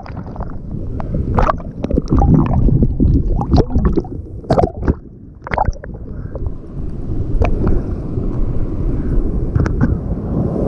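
Seawater sloshing and gurgling right at the microphone, broken by repeated sharp splashes, as a person swims through rough sea.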